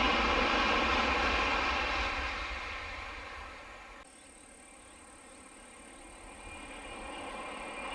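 Rushing noise of an N700 series Shinkansen passing at high speed, fading as the train goes away. About halfway through it cuts to a quieter scene with a steady high-pitched whine, and the rushing of a second N700 train grows louder as it approaches near the end.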